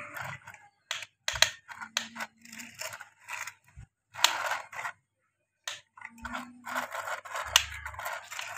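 Plastic toy excavator's bucket scraping and scooping sand across a hard floor, in short irregular scrapes and clicks with brief pauses between them.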